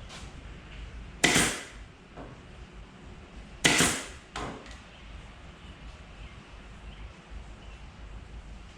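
Pneumatic pin nailer firing twice into wood, about two and a half seconds apart, each a sharp pop with a brief hiss of air, followed by a lighter knock.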